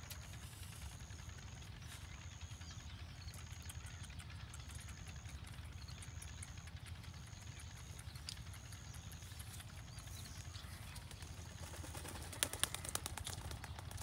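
Field ambience: a steady low rumble, with a high thin tone pulsing evenly a little over once a second, and a quick run of sharp clicks near the end.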